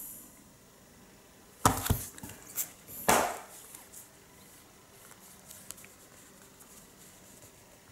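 Comic book collected editions, a hardcover and a trade paperback, being handled and set down on a cloth-covered table. There are a couple of knocks a little under two seconds in, a brief rubbing slide about a second later, then faint handling noise.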